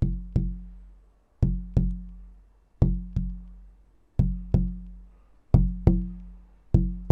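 Wooden tone pieces for a sonic box tapped in quick pairs, two knocks a fraction of a second apart, six times over, each knock ringing briefly with a low note. The two pieces sound nearly the same pitch, both an F, so they match for an F box.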